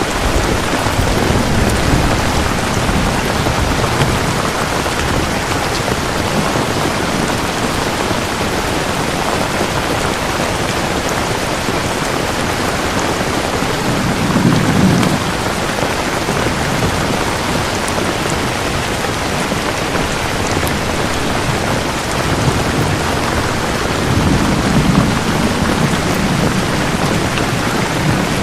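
Steady rain falling, with low rumbles of thunder swelling up three times: near the start, about halfway through and near the end.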